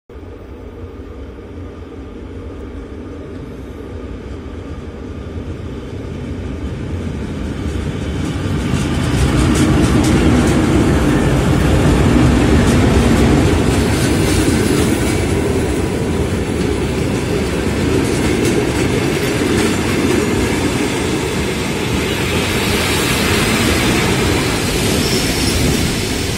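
Russian Railways passenger coaches rolling past a station platform: a steady rumble with wheels clattering on the rails, growing louder over the first ten seconds and then staying loud.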